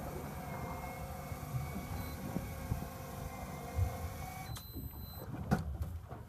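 Electric fishing reel motor whining steadily as it winds, over a low rumble of the boat and water; the whine cuts off suddenly about two-thirds of the way through, followed by a few knocks as the rod is handled.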